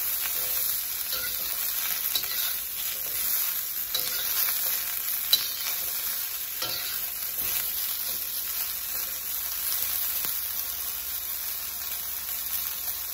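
Broccoli sizzling in oil in a wok over high heat, stirred and tossed with a metal wok spatula that scrapes and clacks against the pan, with one sharp clack about five seconds in. After about seven seconds the stirring stops and a steady sizzle remains.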